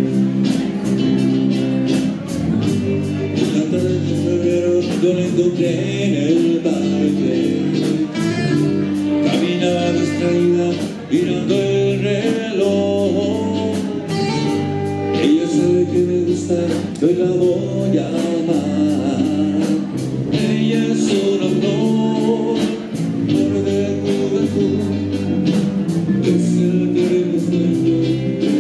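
Live rock band playing: electric guitar, electric bass, drum kit and saxophone over a steady beat, with a man singing.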